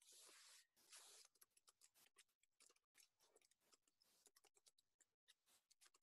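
Faint computer keyboard typing: a quick, irregular run of key clicks, with two brief bursts of hiss in the first second.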